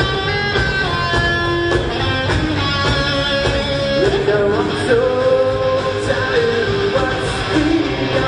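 Live rock band playing: electric guitars over a drum kit, with a melodic line that slides in pitch about halfway through.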